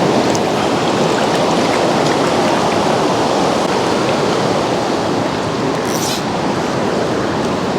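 Fast mountain river rushing steadily over rapids at high water, a loud, even roar of moving water. A brief high hiss cuts in about six seconds in.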